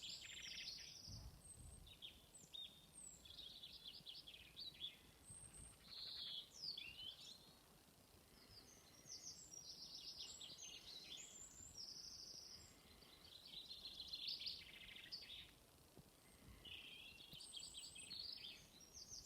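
Several songbirds singing at once in a faint spring dawn-chorus-like mix, with overlapping short trills and chirping phrases that come and go throughout.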